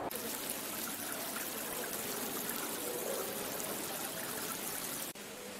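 Water running and trickling through the stone channels of an indoor stone water garden: a steady splashing hiss that abruptly drops quieter about five seconds in.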